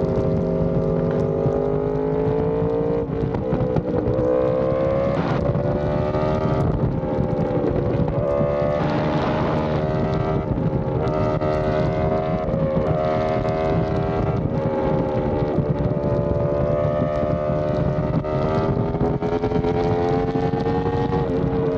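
Yamaha R1M's crossplane inline-four running hard through an SC Project exhaust at highway speed, its pitch dipping and climbing several times as the throttle opens and closes. Wind rushes past underneath the engine note.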